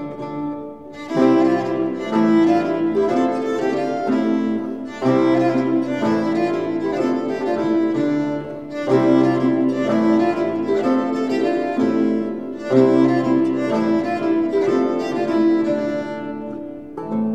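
Instrumental music for a fifteenth-century court dance, in phrases that swell and begin again about every four seconds.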